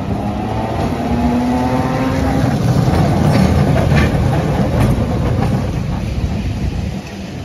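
Vintage electric tram running past close by on wet street track, getting louder to a peak midway and then easing off, with a whine in the first couple of seconds and several clicks from the wheels on the rails near the middle.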